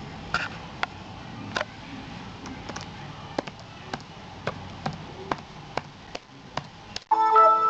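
Scattered light clicks and taps from a laptop being handled. Near the end, a short, loud electronic chime of several held tones sounds.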